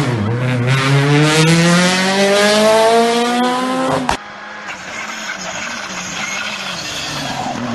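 Rally car engine pulling hard, its pitch climbing steadily for about four seconds. After an abrupt cut, a quieter, more distant rally car engine is heard approaching.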